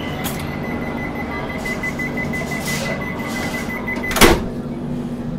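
Automatic sliding doors of a Tejas Rajdhani coach closing, with hissing as they move while a steady high warning tone sounds. The tone stops as the doors shut with a loud thud about four seconds in, over a steady low hum.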